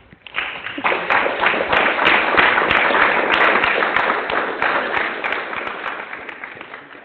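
Audience applauding: many hands clapping at once, building up over the first second and slowly dying away over the last few seconds.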